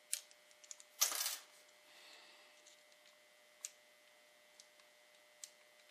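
Small metal clicks and a brief clinking rattle about a second in, from a screwdriver bit being handled in a bit driver, followed by a few faint ticks.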